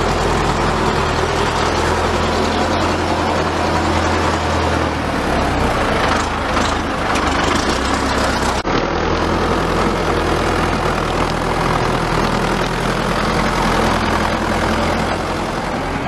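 Diesel engine of a farm tractor fitted with a front dozer blade running steadily and loudly as it pushes soil, its low note shifting a little midway. There is an abrupt break about halfway through.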